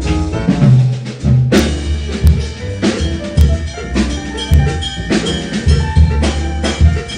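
Live jazz piano trio playing: grand piano, upright double bass and drum kit, with the drums prominent in repeated loud strikes.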